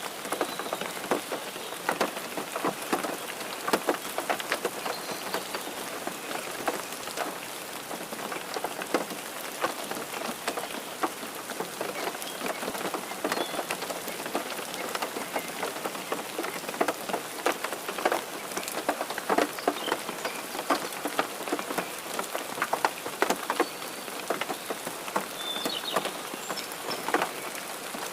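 Steady rain falling on a surface, an even hiss dense with many sharp individual drop impacts.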